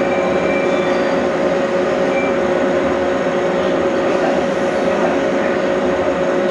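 Stationary electric train's onboard equipment humming steadily, a constant whirr with two steady mid-pitched tones.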